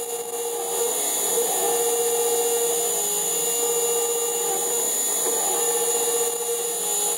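Milling machine end mill cutting the outer contour of a carburettor intake manifold from a metal blank: the spindle and cutter run with a steady whine that wavers slightly in pitch, over a continuous hiss of cutting.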